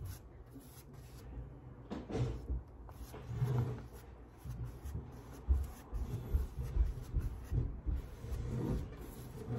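A flat brush stroking matte medium over paper glued onto a canvas: soft, irregular scrubbing strokes with low bumps as the canvas is pressed.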